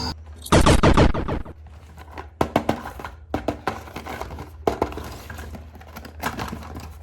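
Hard plastic toy pieces clattering as they are handled: a loud rattle of clicks about half a second in, then scattered light knocks and taps.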